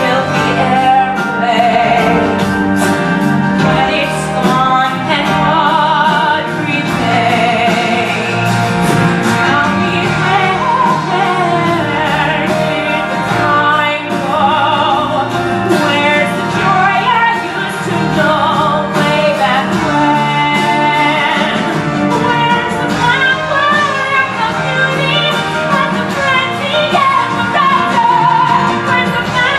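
A female singer holding long notes with vibrato over steady instrumental accompaniment: a ballad from a stage musical.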